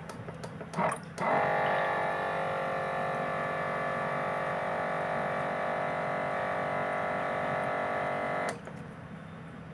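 Small electric water pump on a water jug buzzing steadily for about seven seconds as it dispenses water, then cutting off suddenly. A short knock comes just before it starts.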